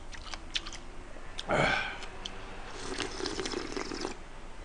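A person eating watermelon punch with ice from a metal ladle. Small clicks of the ladle against the glass bowl and ice come first, then a short, louder slurp about one and a half seconds in, followed by softer slurping and chewing.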